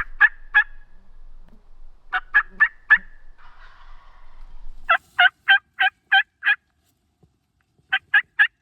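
Wild turkey yelping: runs of short, sharp, evenly spaced notes, about four a second, in groups of three to seven with pauses between.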